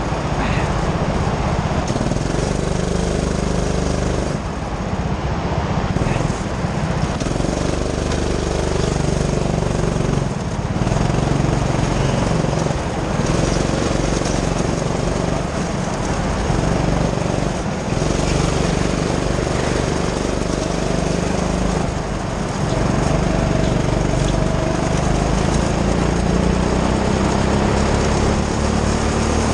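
Go-kart's small petrol engine running at speed, its revs dropping and climbing again every few seconds through the corners.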